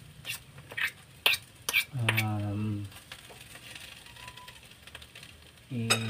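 Metal utensil scraping and clinking against a cooking pan, four quick clicks in the first two seconds, as fried mashed sardines are scooped out. A man's voice gives two short, flat hums, one about two seconds in and one near the end.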